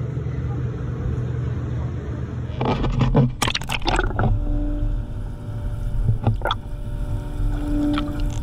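A boat's steady engine rumble, broken about two and a half seconds in by a burst of splashing as the camera goes under the surface; after that the boat's machinery is heard underwater as a muffled steady hum, with scattered bubbling clicks.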